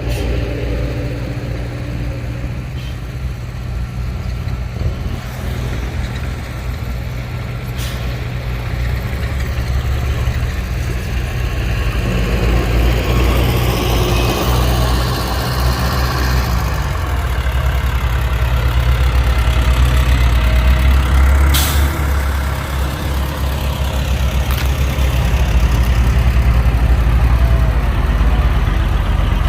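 Heavy diesel engines of construction vehicles running, a steady low rumble that grows louder through the middle, with a brief sharp hiss about two-thirds of the way through.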